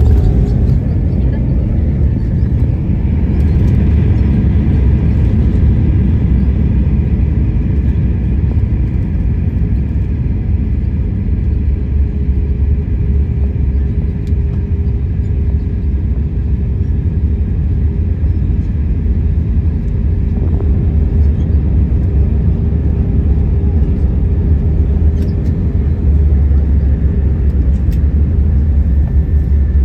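Cabin noise inside an Airbus A321 rolling along the ground after landing: a steady low rumble with a faint, steady hum over it.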